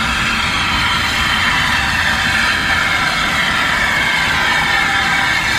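Steam locomotive No 2409 King George and its coaches running into the platform, a steady rumble with a high squeal of several tones that slowly slide in pitch.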